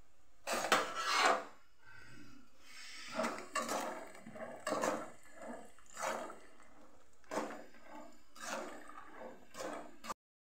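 A slotted spatula stirring peanuts as they roast in a little hot oil in a pan: about a dozen uneven scraping strokes against the pan, with the nuts rattling, over a faint steady background. The sound cuts off suddenly near the end.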